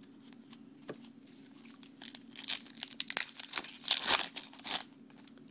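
Baseball card pack wrapper being torn open and crinkled: a few light clicks, then about two and a half seconds of crinkling starting about two seconds in.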